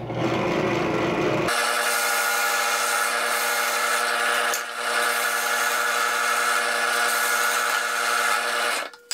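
Drill press used as a lathe, its motor humming steadily while a hand-held chisel cuts a spinning wooden block, giving a steady scraping of wood being shaved down toward round. The cutting stops abruptly near the end.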